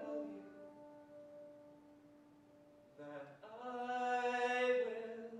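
Man singing a musical-theatre ballad: a held note dies away over the first three seconds, then his voice comes in again about three seconds in on a long sustained note that swells and then fades near the end.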